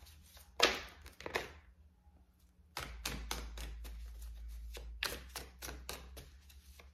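A tarot deck being shuffled by hand: a quick run of card clicks and slaps, pausing briefly about two seconds in before carrying on.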